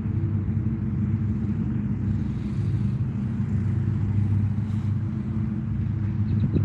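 Steady, low engine drone, with the hum of road traffic.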